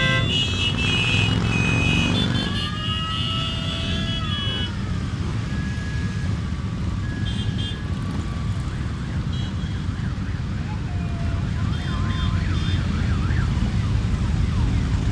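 Many motorcycles riding slowly past one after another in a procession, their engines making a steady mixed rumble. Horn toots and gliding, siren-like tones sound over it, with a fast warbling tone near the end.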